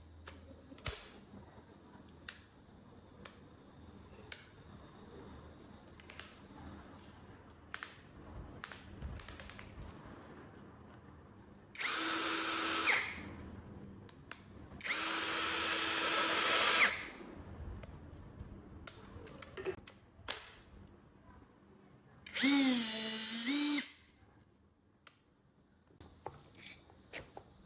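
A brushless cordless power tool's motor run three times in short bursts of one to two seconds, with a steady whine that sags and recovers in pitch during the last run. Between runs there are scattered clicks and knocks of handling.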